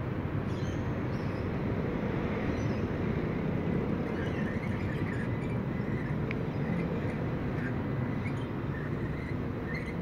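Steady low rumble of street traffic, with faint short bird chirps scattered through it.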